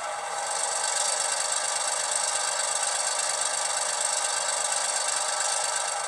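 Diesel switcher engine sound from an HO-scale Atlas MP15DC model's Loksound v5 sound decoder, played through two tiny sugar-cube speakers. The engine runs steadily, gets louder about a second in, and sounds thin with no bass.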